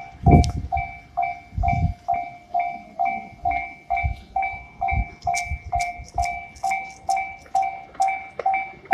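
Japanese level-crossing warning bell: an electronic ding repeating about two and a half times a second, with a passing train's low knocks early on and sharp wheel clicks on the rails from about halfway.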